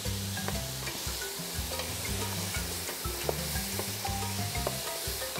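Cubed potato, pumpkin and carrot sizzling in butter in a soup pot, stirred with a wooden spoon that clicks now and then against the pot. Background music with a bass line plays under it.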